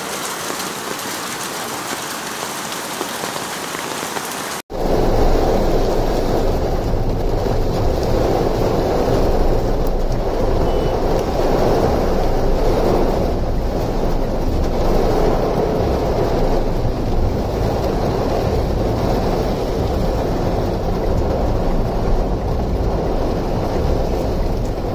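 Heavy monsoon rain pouring down onto a flooded street, a steady hiss. About five seconds in it cuts to a louder, deeper, steady rush of downpour on standing floodwater.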